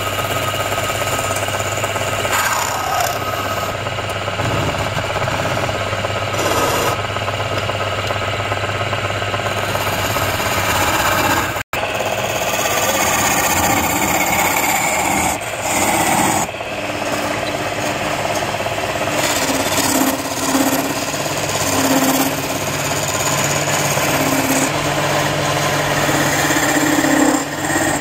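Wood lathe running while a hand-held steel turning chisel cuts and scrapes the spinning wood, a steady rasping over the lathe's hum. The sound cuts out for an instant near the middle.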